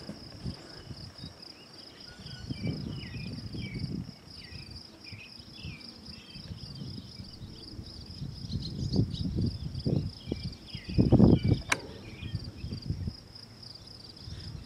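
Steady high-pitched drone of insects such as crickets or grasshoppers, with faint short chirps above it. Gusts of wind buffet the microphone as low rumbles, the strongest about eleven seconds in.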